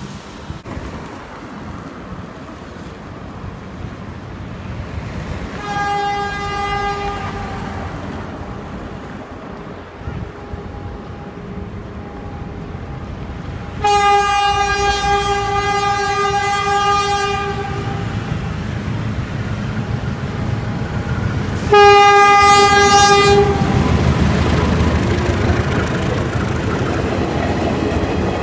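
A PNR 900 class diesel locomotive's horn sounds three single-note blasts: a short one about six seconds in, a long one of about four seconds, then a shorter one. The rumble and rail clatter of the locomotive and its ex-JR East 203 series cars grow louder toward the end as the train rolls past.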